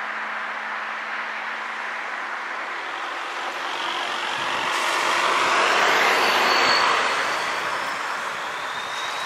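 A car driving past: its tyre and engine noise swells as it approaches, is loudest about six seconds in, then fades away.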